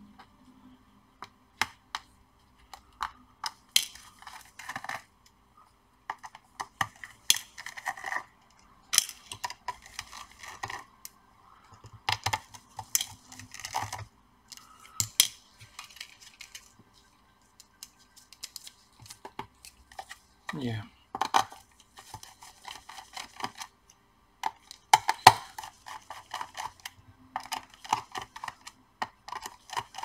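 Precision screwdriver undoing the small screws of a laptop's bottom cover: bursts of rapid clicking and light metallic clinks, one after another.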